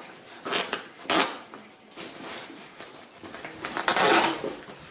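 Handling noise: a few short clatters and rustles, with a longer rustling clatter near the end, as the impact wrench kit's parts are packed into their bag.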